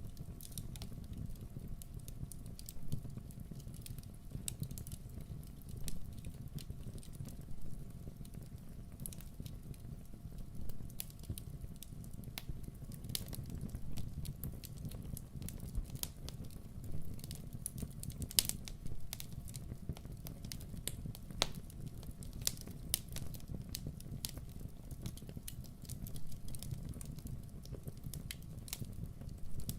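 Campfire crackling: irregular sharp pops and snaps over a steady low rumble of the flames, with one louder pop a little past the middle.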